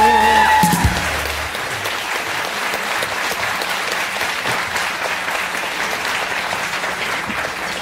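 A song's last held sung note and band chord end about a second in, and an audience breaks into steady applause.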